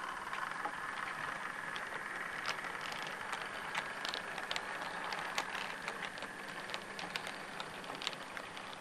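Bachmann OO gauge class 350 EMU model running on the track: a steady motor and wheel whine with scattered light clicks and rattles.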